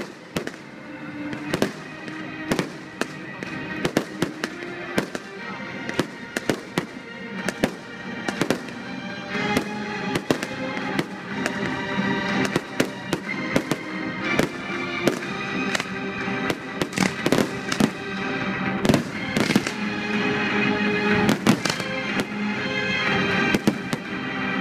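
Fireworks display: a rapid, irregular series of aerial shell bursts and rocket bangs with music playing throughout, growing louder toward the end.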